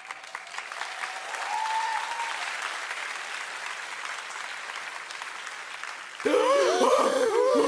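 Audience applauding, steady, until a voice cuts in loudly about six seconds in.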